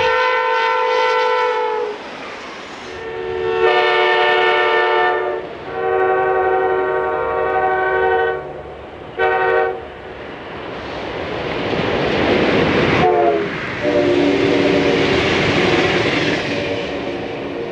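Nathan K5LA five-chime air horn on an Amtrak AEM-7 electric locomotive: one blast of about two seconds, then long, long, short and, after a pause, a final long blast. A loud rush of the passing train builds under the last blast, and the horn's pitch drops as the train goes by.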